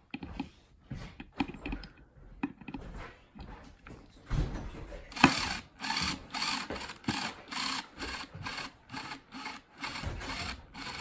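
DeWalt hammer drill driving a screw into a wooden cabinet door. It starts with light clicks and handling noise, then from about five seconds in runs in short rasping bursts, about two a second.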